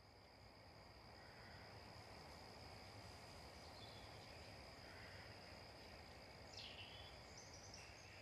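Faint nature ambience rising slowly over the first couple of seconds: a steady high-pitched insect drone, with a few short bird chirps about six and a half seconds in.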